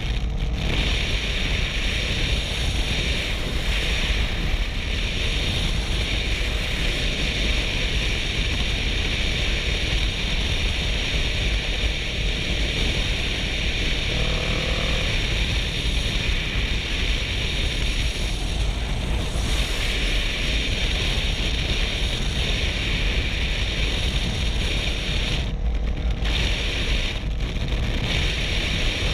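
Steady wind rush buffeting a helmet-mounted GoPro's microphone on a motorcycle ridden at road speed, with a low rumble underneath.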